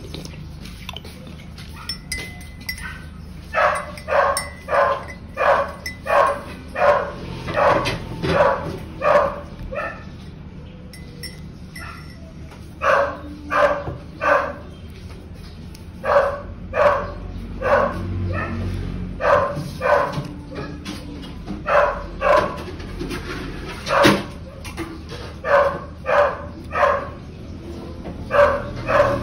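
A dog barking over and over in runs of several barks, about two a second, with short pauses between the runs.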